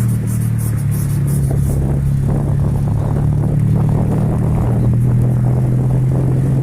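Steady vehicle drone: a car running at constant speed, with an even low engine and road hum.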